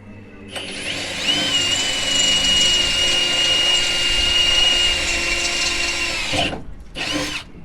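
Cordless drill boring into metal, the bit giving a steady high squeal for about five seconds before it stops, then a second short burst.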